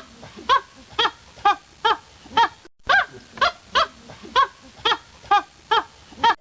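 An animal giving short, pitched calls that drop in pitch, repeated about twice a second, with a brief silent break a little under three seconds in.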